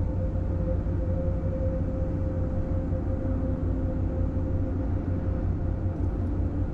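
Steady road and engine noise inside the cab of a Ford Super Duty pickup carrying a truck camper at highway speed: a deep, even rumble with a constant hum above it.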